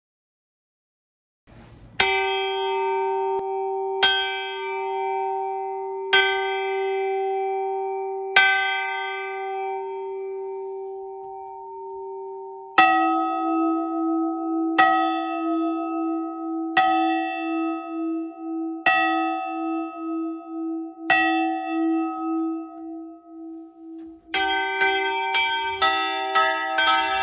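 Swinging church bells ringing in Advent. About two seconds in, one bell starts striking about every two seconds with a long hum between strokes. Just before halfway a lower-pitched bell takes over at the same pace with a pulsing hum, and near the end several bells ring together in a full peal.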